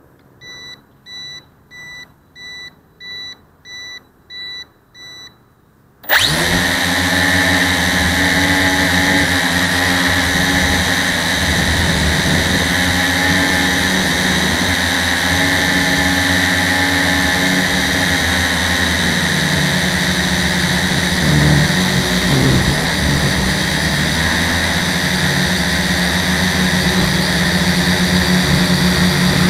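About eight short electronic beeps, evenly spaced, then the electric motors of a battery-powered radio-controlled aircraft start abruptly about six seconds in and run loud and steady with propeller whir, heard close up from the on-board camera as it flies.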